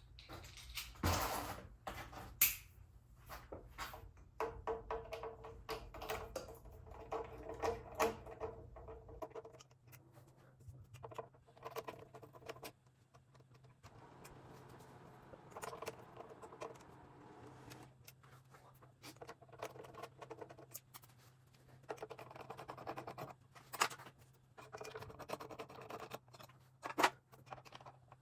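Handling noise from a ceiling fan being taken down: irregular clicks, knocks and scrapes of its metal and plastic parts, with a faint steady low hum underneath.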